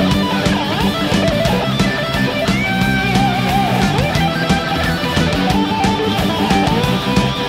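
Heavy metal music led by electric guitar, with a melodic lead line over a steady, dense backing.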